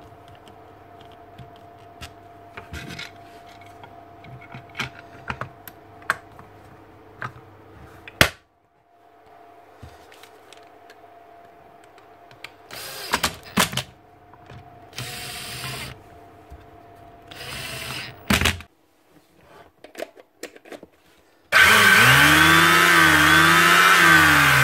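Small clicks of the switch wiring being handled, then a drill-driver whirring in three short bursts of about a second each as the handle screws are driven. About three seconds before the end, the Makita 1125 planer's motor starts and runs loud, its pitch rising and then dipping. It sounds a little rough, which the owner puts down to the bearings.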